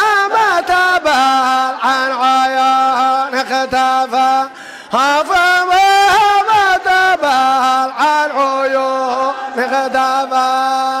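Male devotional chanting in Arabic: long held notes that slide up into pitch and sustain, broken by a short pause about four and a half seconds in.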